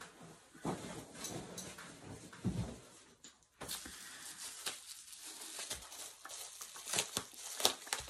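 Handling noise from reaching into a box, with a low thump about two and a half seconds in, then plastic bubble wrap crinkling and crackling as a package is unwrapped, with a few sharp snaps near the end.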